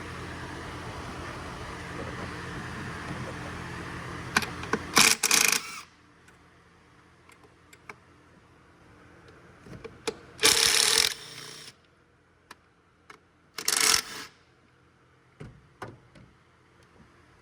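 Work noise from hand tools and engine parts being handled: a few short, loud rasping bursts and scattered sharp clicks and knocks, over a steady hum that stops about six seconds in.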